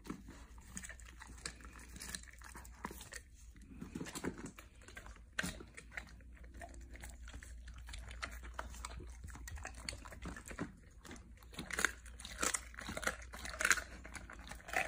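A Cane Corso chewing raw meat, with irregular wet clicks and crunches. A few louder crunches come near the end.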